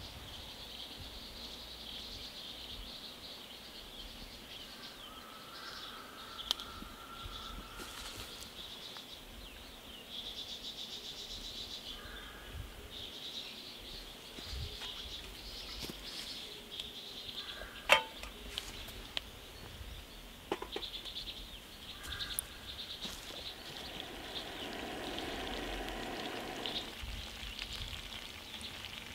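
Outdoor ambience: a steady high insect chorus with scattered short bird calls, and one sharp click about two-thirds of the way through.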